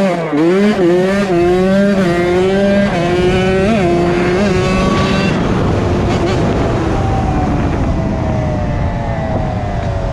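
Honda CR80's 80cc two-stroke single-cylinder engine being ridden: its pitch rises and dips with the throttle, holds fairly steady for a few seconds, then falls slowly as the throttle eases off near the end, with wind noise on the microphone.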